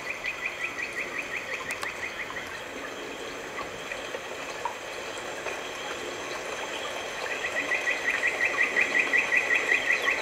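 Rapid, evenly repeated high chirps, about five a second, in two runs: one that fades out after about two seconds and a louder one from about seven seconds in, over a steady outdoor hiss.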